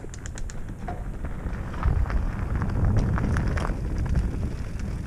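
Mountain bike rolling down a dirt trail: a low rumble of tyres and wind on the microphone that grows louder about two seconds in, with scattered clicks and rattles from the bike over the rough ground.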